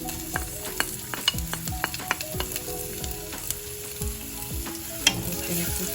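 Garlic and spring onion sizzling in hot vegetable oil in a pan, with a utensil stirring and clicking against the pan. The sizzle grows louder about five seconds in.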